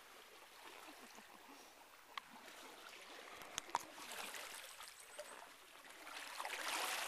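Water splashing and trickling as an elephant wades through a shallow, muddy stream, louder near the end. A few sharp clicks come in the middle.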